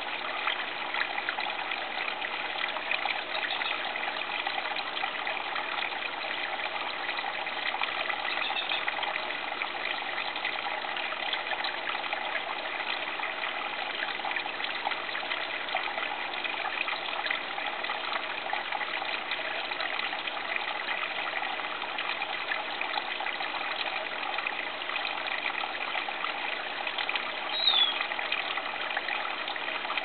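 Water from an aquarium waterfall filter, built as a Buddha-shrine fountain, falling in a thin curtain and trickling steadily. One brief high chirp near the end.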